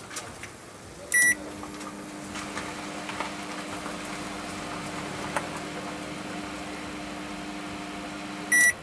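Microwave oven beeps as a button is pressed, then runs with a steady hum for about seven seconds and stops with a second beep: the repaired start and cancel buttons working.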